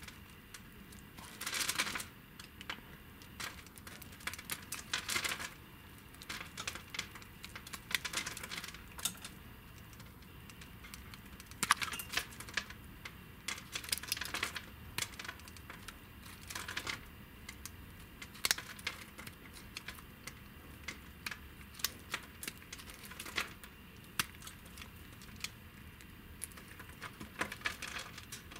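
A snap-off utility-knife blade cutting into a bar of soap, scoring it into small cubes: irregular bursts of crisp crackling clicks as the blade presses through and cubes break away.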